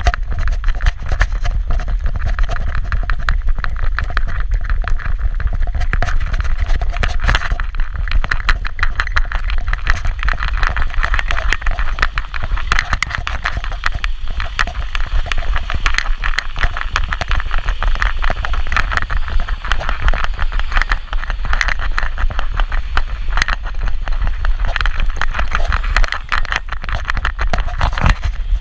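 Continuous rattling and knocking of a camera harness and leash hardware jostled by a small dog's trotting steps, over a steady low rumble of street traffic.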